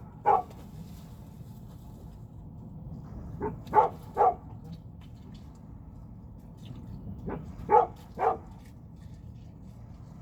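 A dog barking in short runs of two or three barks, about four seconds apart, over a steady low background noise.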